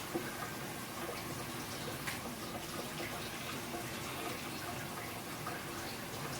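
Steady watery noise with a few small clicks, the sharpest just after the start and about two seconds in.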